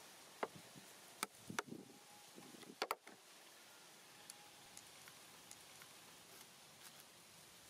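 Light, sharp clicks and taps from hands handling a clear plastic bottle, a pen and a plastic comb: about five in the first three seconds, then only a few faint ticks.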